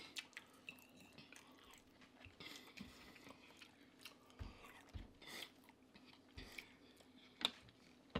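Faint close-miked chewing and eating sounds, with scattered small clicks, a few soft low thumps around the middle, and a sharper click near the end.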